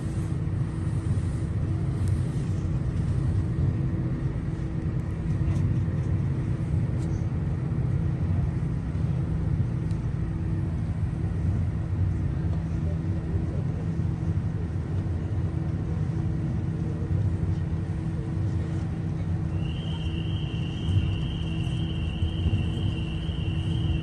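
Ferry's engines and machinery running steadily, heard from the open deck: a low rumble with a steady hum. A thin steady high tone comes in near the end.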